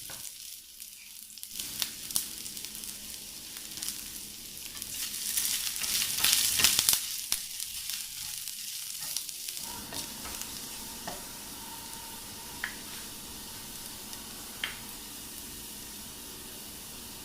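Sliced ginger sizzling in hot cooking oil in a pan while being stir-fried, with scattered clicks of stirring. It is louder and busier for a few seconds around the middle, then settles into a steady sizzle with a few sharp pops of oil.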